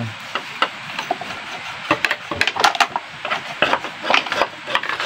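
Irregular short scratchy strokes of a brush scrubbing packed sawdust and grime off a chainsaw engine's cooling fins, mixed with a tool scraping at another dirty metal part.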